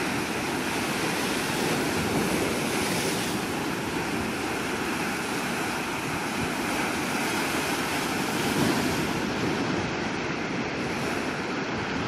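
Rough sea waves breaking and washing over shoreline rocks: a continuous, steady rush of surf.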